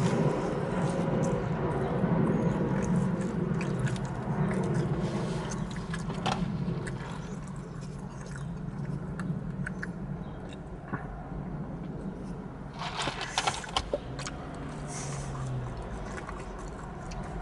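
A low steady rumble, like a vehicle or passing traffic, that fades after about eight seconds, with scattered small clicks and scrapes of handling and a short cluster of sharper clicks about 13 seconds in.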